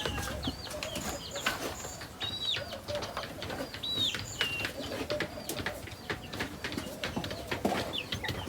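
A pen of young chickens peeping: many short, high, arched cheeps at irregular intervals, with scattered sharp clicks among them.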